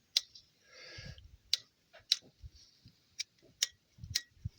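Six or so sharp clicks at irregular intervals, typical of tools or small parts being handled, with a brief rustle about a second in.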